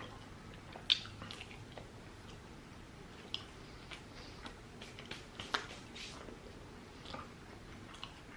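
A person chewing food close to the microphone: quiet wet mouth clicks and smacks, one or two a second.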